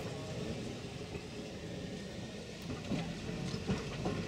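A vintage wooden electric interurban car rolling slowly along yard track, a low steady rumble with a few short knocks in the second half.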